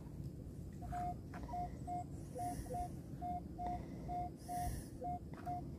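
Minelab Equinox 600 metal detector sounding its target tone: short single-pitch beeps, about two a second, as the coil sweeps back and forth over a buried target, with a few higher and lower blips among them. The target reads 23–24 on the detector, a high-tone signal.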